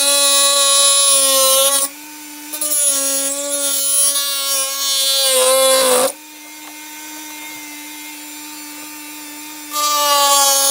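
Dremel rotary tool on a flexible shaft with a cutting disc, running at a steady high whine and cutting into the corners of a Lexan (polycarbonate) part. The grinding noise of the cut drops away about two seconds in and again for several seconds from about six seconds in, leaving only the tool's quieter whine, and returns near the end. The pitch sags briefly just before the second pause as the disc is loaded.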